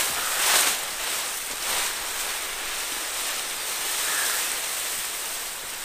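Large bundle of dry areca palm fronds rustling and swishing as it is carried along on a man's back, loudest about half a second in.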